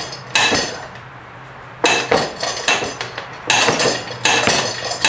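Steel mount/demount bar of a Harbor Freight manual tire changer clanking and scraping metal-on-metal against the changer's post and an aluminum rim as it is levered around to work a tire bead onto the rim. The clanks come in bunches, one about half a second in and two longer runs after about two seconds.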